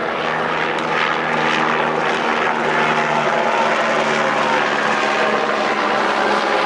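A steady low engine drone with several even tones, fading out about five seconds in, over a continuous noisy background haze.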